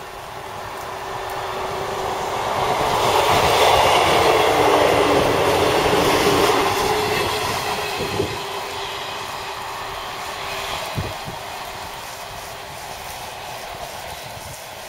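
Class 158 diesel multiple unit passing at speed: engine and wheel noise builds to a peak about four seconds in with a steady engine tone, then fades as it draws away, with a few sharp clicks from the wheels on the rails.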